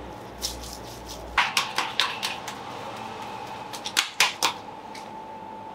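Gloved hands slapping and pressing minced mutton flat on a plastic cutting board: a quick run of sharp slaps about a second and a half in, and another cluster near four seconds, over a faint steady hum.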